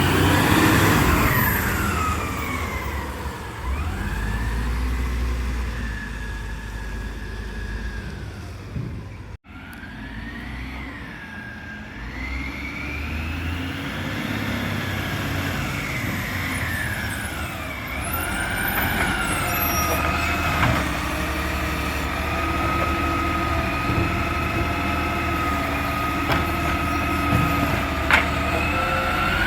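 Garbage truck running, with a whine that rises and falls in pitch as the truck revs and eases off, then holds steadier near the end. The sound breaks off briefly about nine seconds in.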